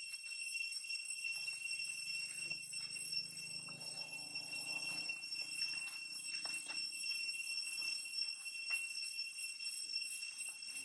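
Insects droning steadily in a high pitch, with a few faint clicks scattered through.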